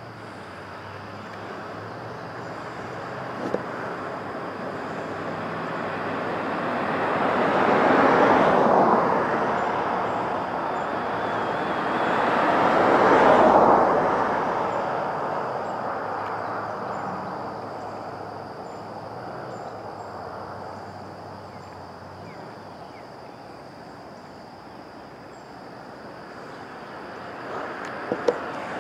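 Road traffic going by: vehicles approach and pass, their tyre and engine noise swelling to two peaks about five seconds apart, then slowly fading away.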